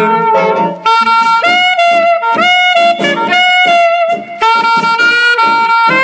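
Instrumental break: a saxophone plays the tune in held notes, sliding up into some of them, over a band accompaniment.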